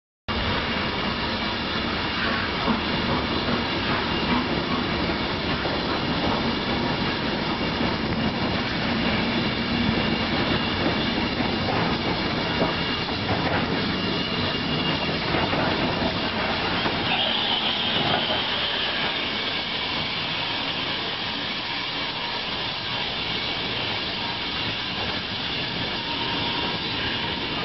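Steam train of coaches rolling past behind BR Standard Class 4MT 4-6-0 locomotive 75029, a steady rumble of wheels on the rails with scattered clicks. A higher squeal comes in a little past halfway.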